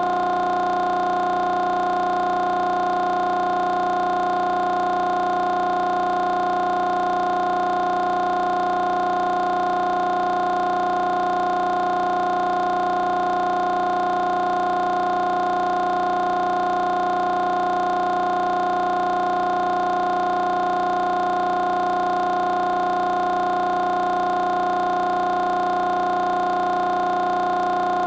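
A steady drone of several pitches held together, unchanging in pitch and loudness throughout.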